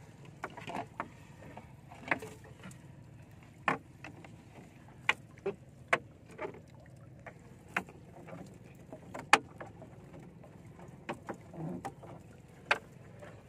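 Irregular sharp knocks and taps on the hull of a small wooden outrigger boat as a gill net is hauled aboard by hand, over a faint steady low hum. The loudest knock comes about nine seconds in.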